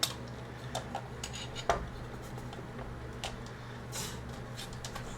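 Light metallic clicks, taps and scrapes of a mini PC's metal chassis and parts being handled and pried at, with a sharper clack at the very start and another about a second and a half in.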